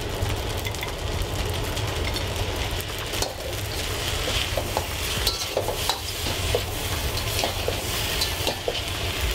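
Rice noodles frying in a hot stainless steel skillet, sizzling as Pad Thai sauce is poured in, then tossed with metal tongs and a spatula that scrape and click against the pan again and again.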